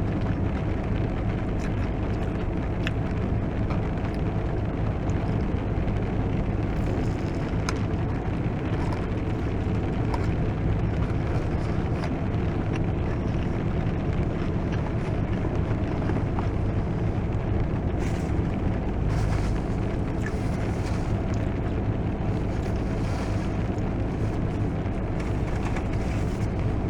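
Heavy rain pouring steadily onto a car's roof and windshield, heard from inside the cabin, with a faint steady low hum underneath.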